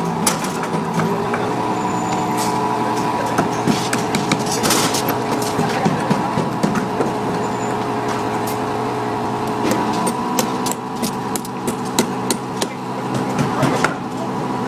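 Heavy construction machinery's diesel engine running steadily, with scattered metallic knocks and clanks that come more often near the end.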